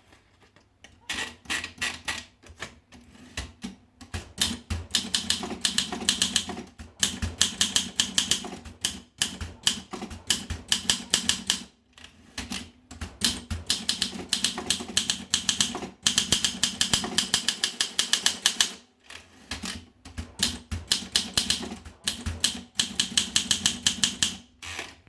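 Olympia SM3 Deluxe manual portable typewriter being typed on: quick runs of sharp key strikes, broken by a few short pauses.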